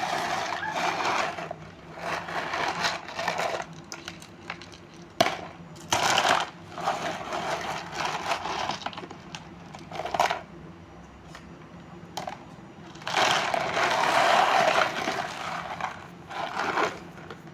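Small stones being rattled and stirred, clattering in bursts of one to two seconds with short pauses, and a sharp click about five seconds in.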